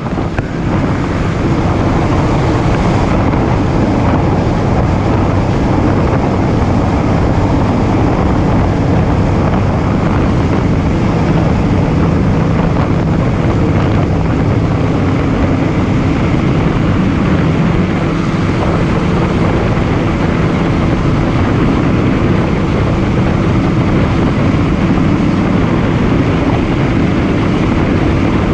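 Boat motor running steadily at wide-open throttle while the hull planes across open water, with heavy wind noise on the microphone.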